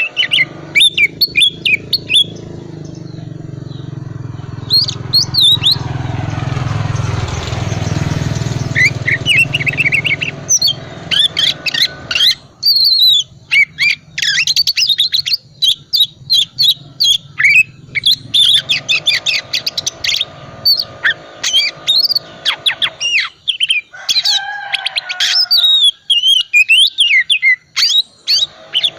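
Oriental magpie-robin singing a long, rapid, varied song of whistles and chirps, full of mimicked notes of other birds. A low steady background noise lies under the song for the first few seconds.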